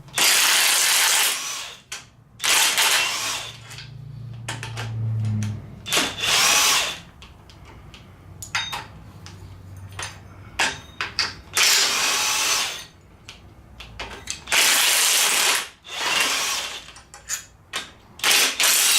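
DeWalt 1/2-inch cordless impact wrench running in about six short bursts of roughly a second each, backing bolts out of engine brackets. Light clicks and knocks come between the bursts.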